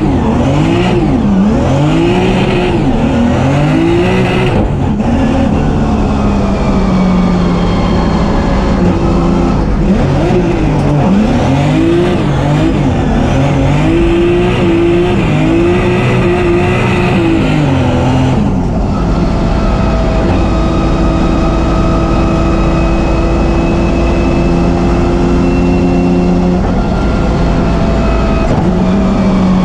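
Turbocharged BMW M3 drift car's engine heard from inside the cockpit, its revs rising and falling quickly over and over as the car is driven sideways through the corners. For about the last third the revs hold high and nearly steady.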